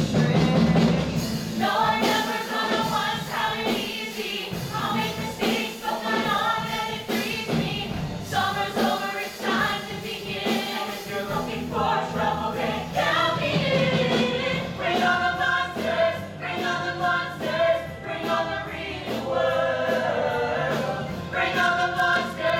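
A musical-theatre cast singing a song together as an ensemble, in sustained sung phrases with short breaks between them.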